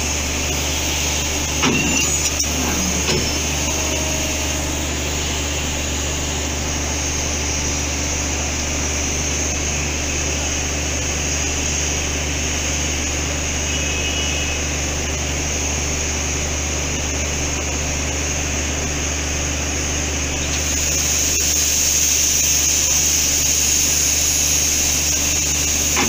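WP-class steam locomotive No. 7200 easing up to a coach for coupling, giving a steady low hum and a hiss of steam. A few light clicks sound about two seconds in, and the hiss grows louder about 21 seconds in.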